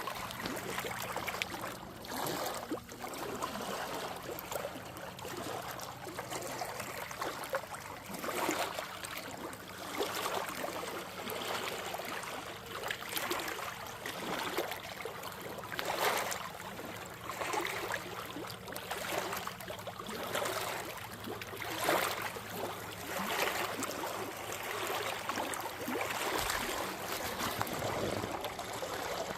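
Small lake waves lapping and washing onto the shoreline, a louder wash every couple of seconds over a steady water hiss.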